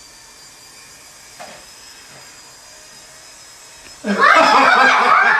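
Electric hair clippers buzzing steadily. About four seconds in, a sudden loud human scream drowns them out.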